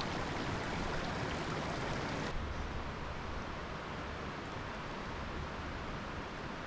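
Shallow mountain stream running over stones, a steady rushing. About two seconds in it cuts abruptly to a duller, quieter steady outdoor hiss with some low wind rumble.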